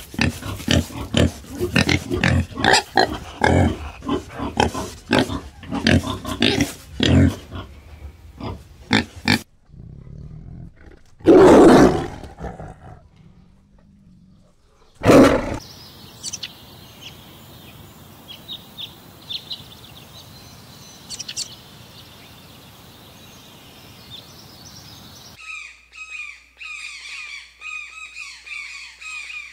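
Peccaries grunting in rapid short calls, then a tiger roaring twice, loudly; in the last few seconds a hornbill calls in a quick, even series of honking notes, about three a second.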